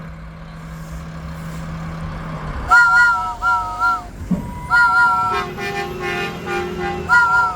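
A three-note train whistle gives three short blasts, answered by the Mack McNeilus garbage truck's horn, a lower buzzy honk of about two seconds, then the whistle blows once more near the end. Before the blasts the truck's diesel engine runs with a steady hum.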